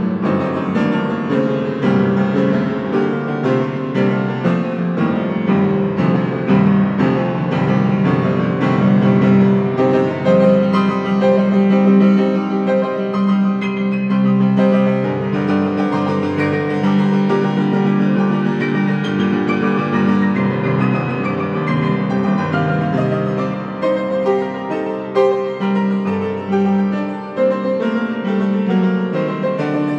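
Yamaha grand piano played continuously in free improvisation: a steady flow of many notes over sustained low chords.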